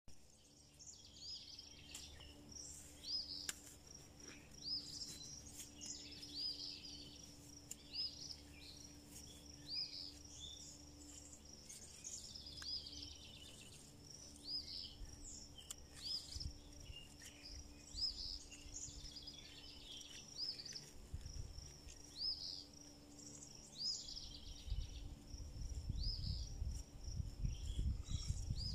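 A bird repeating a short chirp every second or two over a steady high insect buzz, with a low rumble building near the end.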